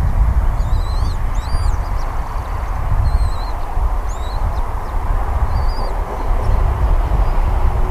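Wind buffeting an outdoor microphone: a steady, rough low rumble. Faint, short, high bird chirps with quick pitch bends come through over it in the first five seconds or so.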